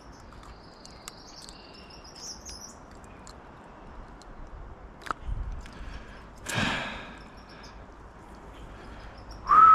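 Steady wind noise with a small bird twittering in the first few seconds, and a brief louder rushing burst about two-thirds of the way through.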